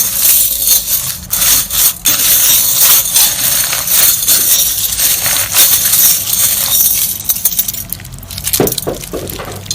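Crunchy slime being squeezed and worked by hand: dense crackling with many sharp clicks and pops. It eases off about eight seconds in.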